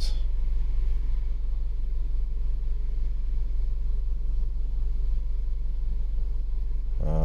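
Car engine idling: a steady, unchanging low rumble.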